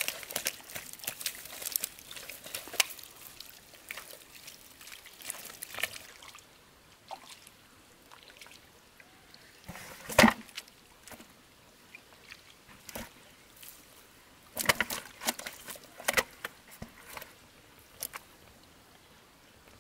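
Water sloshing and dripping in irregular splashes as something is worked in shallow water. The splashes come thick for the first few seconds, then sparser, with the loudest about halfway through.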